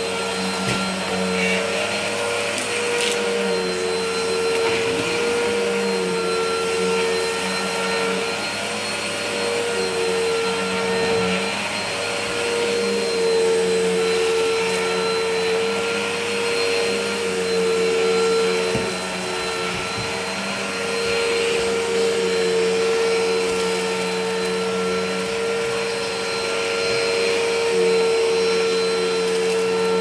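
Bissell Helix upright vacuum cleaner running on carpet, its motor giving a steady whine. The loudness swells and dips gently every few seconds as it is pushed back and forth.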